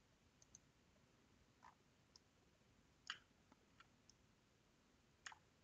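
Faint, irregularly spaced computer mouse clicks against near silence, the clearest about three seconds in and another shortly before the end.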